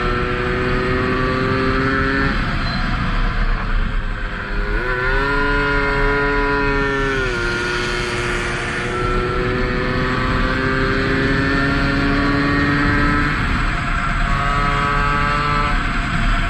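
Tomos 50 cc two-stroke racing moped engine heard from on board, running hard with its pitch climbing slowly and then dropping back a few times as the throttle is eased, over wind noise on the microphone.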